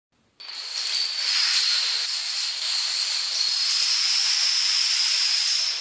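A loud, steady hiss with a high whistling tone running through it, starting about half a second in.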